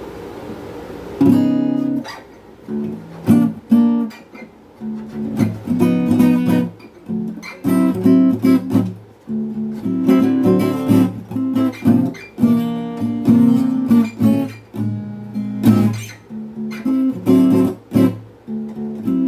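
Jasmine by Takamine S34C steel-string acoustic guitar, tuned a whole step down (D to D), played with a mix of strummed chords and picked notes. It starts about a second in, and the notes ring on with good sustain.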